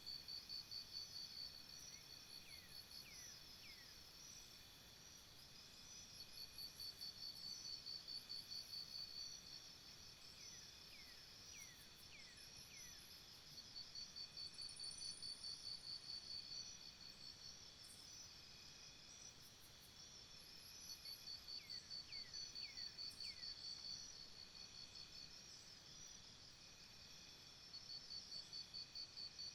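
Faint forest insect chorus: a cricket-like rapid high pulsing that swells in bouts of about three seconds, repeating roughly every seven seconds. A few times, a bird gives groups of two or three short falling whistles.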